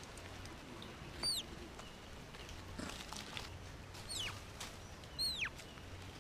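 Lowe's mona monkeys handling a camera at close range: scattered taps and scrabbling on the camera body, and three short high chirps, each falling steeply in pitch, about a second in, at about four seconds and at about five seconds.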